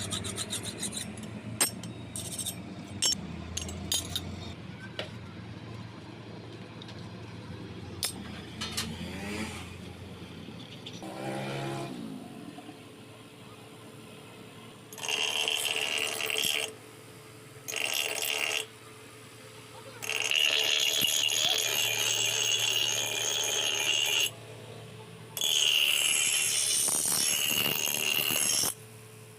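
Scattered sharp metallic knocks, then four bursts of steady, high-pitched power grinding on steel, each lasting from one to four seconds.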